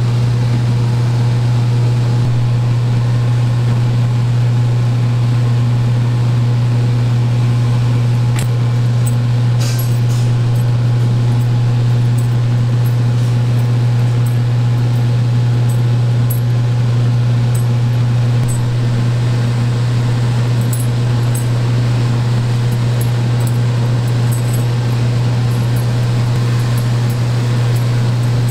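Steady low hum of kitchen equipment running, with a few light clicks and taps as boiled bagels are scooped out of the pot.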